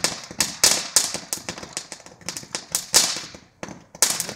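Firecrackers going off in a rapid, irregular string of sharp bangs, several a second, with a short lull near the end.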